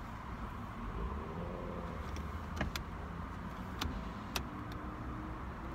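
Steady low rumble inside a car's cabin, with a few small sharp clicks scattered through it.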